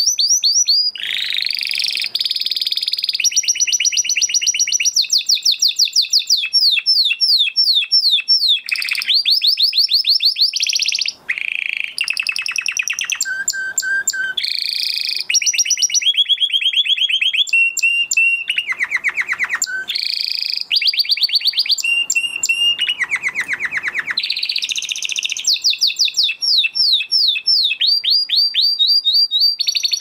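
Spanish Timbrado canary singing a long, almost unbroken song of fast trills, each phrase a rapid run of repeated notes that switches to a new phrase every second or two, with a brief break about eleven seconds in.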